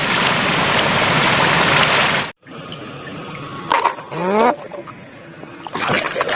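Water spraying hard, rinsing mud off a toy, as a loud steady rush that cuts off abruptly about two seconds in. After it comes quieter trickling, with a short rising tone about four seconds in.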